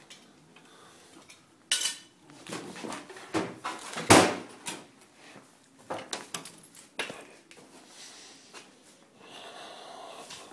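Clatter of metal being handled: a run of sharp knocks and clanks, the loudest about four seconds in.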